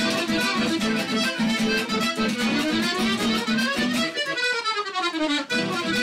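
Piano accordion playing lively traditional music with a steady pulsing bass beat, with a strummed acoustic guitar. About four seconds in the bass drops out and a quick run of notes falls in pitch, then the beat comes back.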